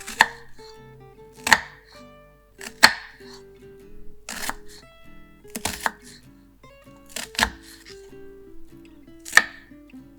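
Knife chopping on a cutting board: sharp single strokes about every one and a half seconds, over gentle plucked-guitar background music.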